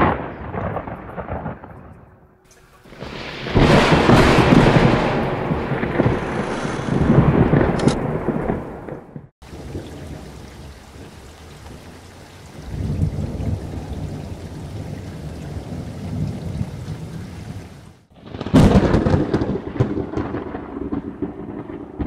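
Loud rumble of racing car engines, heard as several sections cut together with abrupt breaks a few seconds in, near the middle and near the end.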